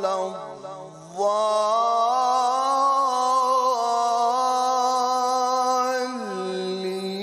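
Man's solo voice chanting Quran recitation in one long melismatic line. A low note, then about a second in it jumps up to a loud, sustained higher pitch with ornaments, and near the end it drops back to a lower held note.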